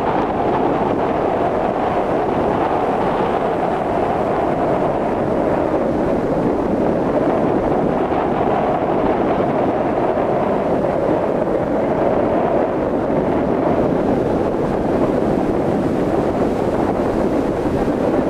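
Steady rushing wind noise on the microphone, even in level throughout.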